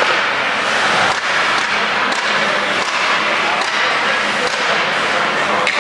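Ice hockey game sound in an indoor rink: a steady wash of spectators' voices and skates on the ice, broken by several sharp clacks of sticks and puck.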